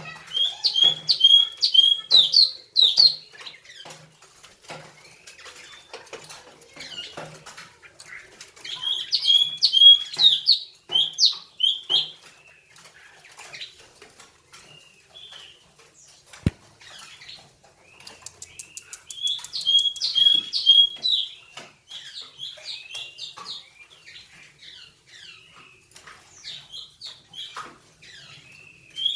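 A caged songbird sings in three loud bouts of quick, clear whistled notes, each note flicking upward. Quieter chirps and twitters fill the gaps between bouts.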